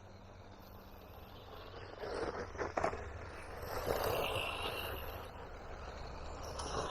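Battery-powered Haiboxing Protector RC car driving over rough backyard ground, its tyres and chassis scraping and rattling. The sound gets louder about two seconds in, with scattered knocks.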